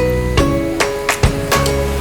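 Background music: a plucked guitar tune over a steady beat, with a percussive hit about every 0.4 s.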